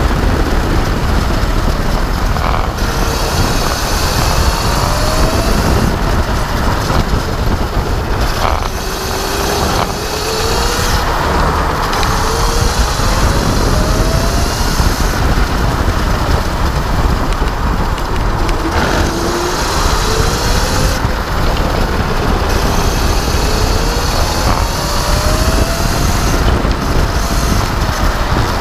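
Electric racing kart at speed: loud wind and tyre rumble on the track, with a faint whine from the electric drive that rises in pitch several times as the kart accelerates out of corners.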